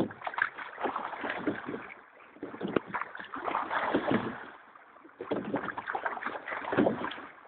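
Crewed rowing boat under way: splashing, rushing water and knocks of the oars swell with each stroke, about every two and a half seconds, three strokes in all.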